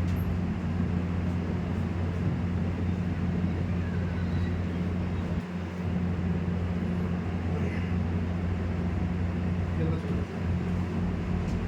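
Steady low hum with a constant background noise, and faint voices now and then.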